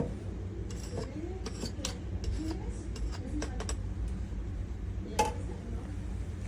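Light metal and glass clinks and clicks from espresso-machine parts and cups being handled, scattered irregularly, with one louder clink about five seconds in, over a low steady hum.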